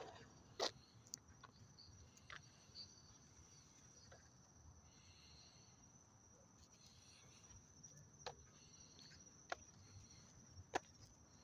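Near silence with a faint, steady, high-pitched insect chirring, broken by a handful of sharp clicks, the loudest just under a second in.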